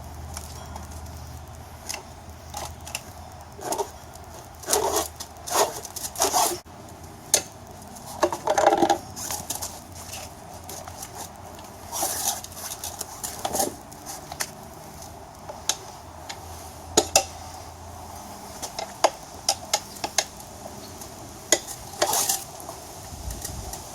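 Metal tire irons clinking and scraping against a motorcycle wheel rim while prying the old rear tire's bead off, as irregular sharp clanks with a few louder strikes.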